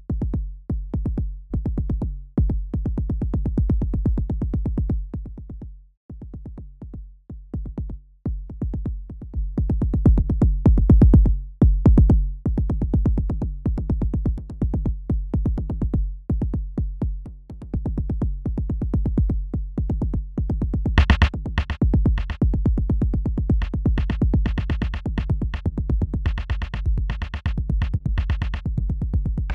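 Electronic drum-machine pattern from a VCV Rack modular synth patch with Trummor drum-synth modules: fast repeating kick-drum thuds under a sustained low tone. The level dips for a couple of seconds early on, and crisp hi-hat-like noise hits join about two-thirds of the way in.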